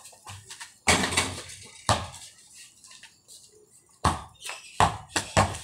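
Basketball bouncing on a concrete court: two sharp bounces about one and two seconds in, then a short run of quicker dribbles in the last second and a half.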